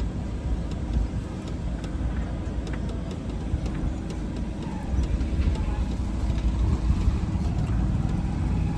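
A car driven slowly, heard from inside the cabin: a steady low engine and road rumble that grows a little louder about five seconds in.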